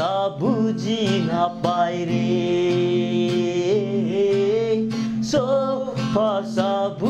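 A man singing to a strummed acoustic guitar, with a second man singing along; the melody holds one long note about two seconds in before moving on.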